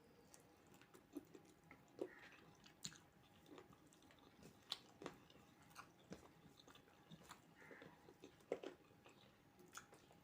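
Faint chewing and biting: a person eating, with irregular soft mouth clicks and smacks.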